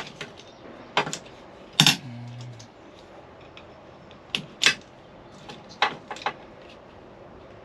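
Scattered sharp clicks and knocks of metal and plastic parts being handled while pulling the turn-signal switch out of a truck steering column, about eight in all. The loudest knock comes a little under 2 s in and is followed briefly by a low hum.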